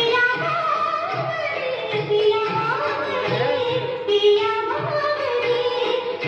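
A singer performing a Hindi film-style song with instrumental accompaniment and a steady beat of about two low pulses a second.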